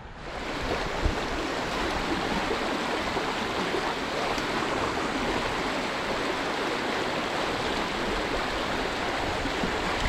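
Trout stream water running with a steady, even rush that swells up within the first half second. There is a single brief low knock about a second in.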